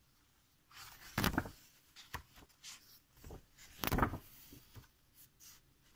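Paper pages of a book being turned and handled by hand: two louder page flips, about a second in and about four seconds in, with fainter rustles between.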